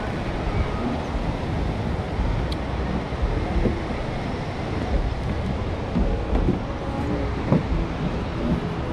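Low wind rumble on the microphone over the wash of ocean surf, with faint voices of passersby.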